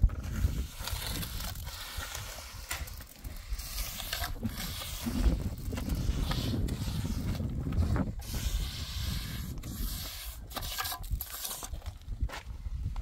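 Trowel scraping and spreading cement mortar along the top of a concrete-block wall, in irregular strokes with a few sharp knocks, over a steady low rumble.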